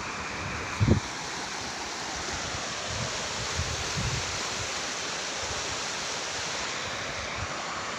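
Fast floodwater rushing over a field with white rapids: a steady rushing of a river in full spate that has broken out over the land. A brief low thump about a second in.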